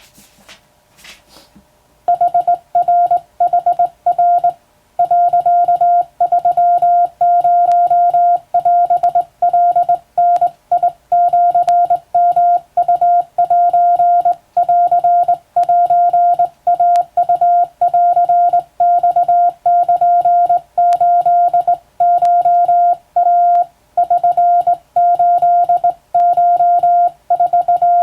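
Morse code sent by hand on a telegraph key: a single steady beep keyed on and off in short and long marks at an even sending speed, starting about two seconds in.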